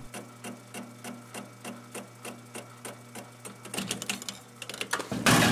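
Metal lathe running with a steady hum as the cutter takes a light facing cut on a soft, annealed copper boiler firebox in a three-jaw chuck, ticking about four times a second against the out-of-round work. Near the end comes a loud clatter as the soft copper deforms and rips itself off the chuck.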